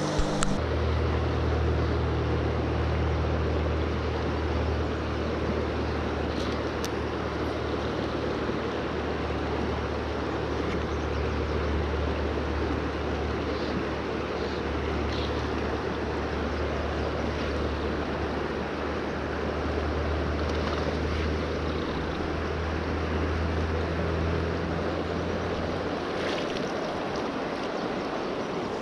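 Shallow river riffle rushing steadily over rocks, with a constant low rumble underneath.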